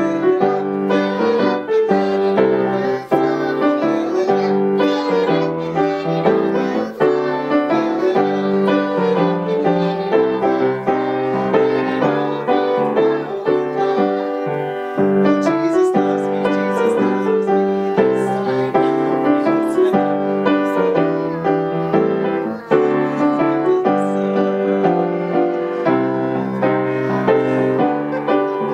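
Grand piano accompaniment with young girls singing a children's song.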